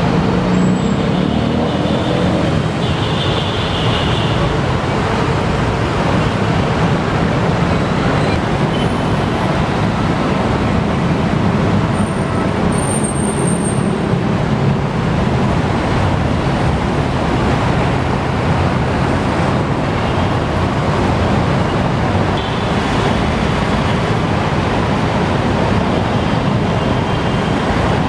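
Steady city road traffic: motor vehicles running and passing, a continuous low rumble of engines and tyres.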